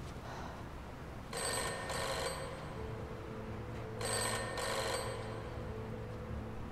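Telephone bell ringing in a double-ring pattern: two short rings, a pause of about two seconds, then two more short rings. A faint steady low hum lies underneath.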